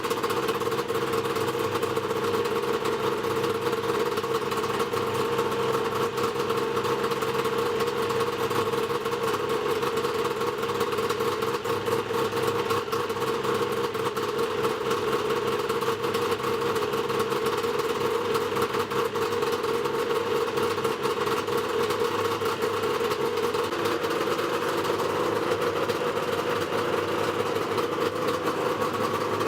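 Yamaha Mountain Max 700 snowmobile's three-cylinder two-stroke engine idling steadily through SLP triple aftermarket exhaust pipes.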